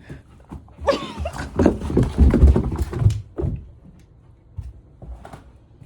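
A dog wearing booties scrambling on the stairs: a dense run of thumps, knocks and scuffs of paws for about two and a half seconds, starting about a second in, with a short vocal cry at the start.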